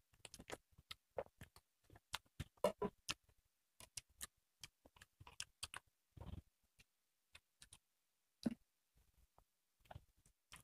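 Faint, scattered eating noises: small irregular clicks and smacks of chewing, picked up close by a clip-on microphone, with a soft bump about six seconds in and a louder click about eight and a half seconds in.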